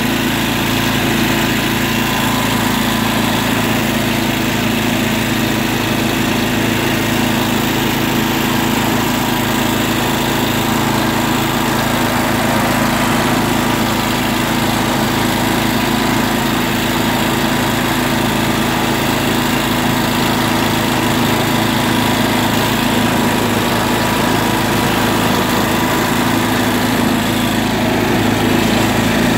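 John Deere tractor's engine running at a steady speed as the tractor is driven, an even drone that holds the same pitch throughout.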